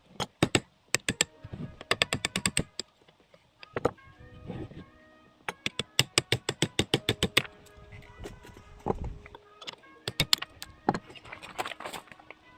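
Background music with sustained notes, over runs of rapid sharp clicks that come several times a second.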